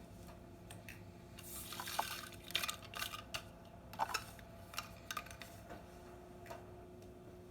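Crunchy objects being crushed under a car tyre: a quiet run of sharp cracks and crackles, starting about a second and a half in and dying away after about five seconds.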